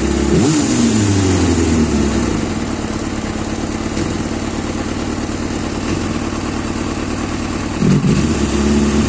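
Kawasaki ZXR400 L9's inline-four engine given two throttle blips, just after the start and near the end. After the first, the revs sink slowly back instead of dropping straight away, then it idles unevenly. This is the rough idle and hanging revs the owner is trying to cure.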